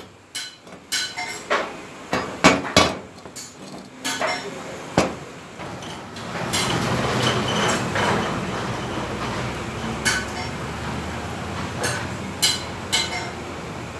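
Sharp metal knocks and clinks of steel square tubing being handled and set down on a concrete floor, several separate strikes over the first five seconds. From about six and a half seconds in, a steady running din with a low hum takes over.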